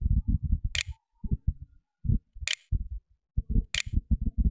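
Three sharp computer mouse clicks, a second or more apart, as letters are clicked one by one on an on-screen keyboard, over a louder low, rapidly pulsing rumble.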